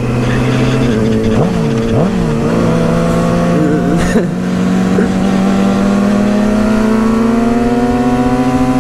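Sport bike engine running at steady cruising revs, its pitch climbing gradually over the last few seconds as the bike accelerates out of the curve, with wind rush over the microphone.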